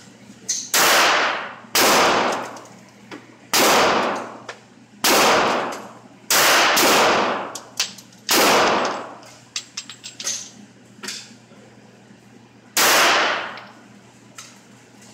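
.22 LR semi-automatic pistol fired slowly, about eight shots at an uneven pace over the first nine seconds, then a pause of several seconds and one last shot near the end. Each shot rings out in the echo of an indoor range, with fainter clicks in between.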